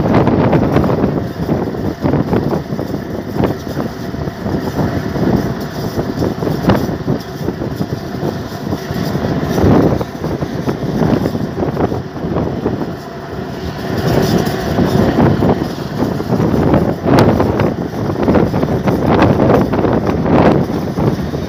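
Noise of a moving road vehicle with wind buffeting the microphone: loud and uneven, swelling and dipping irregularly, with short sharp gusts.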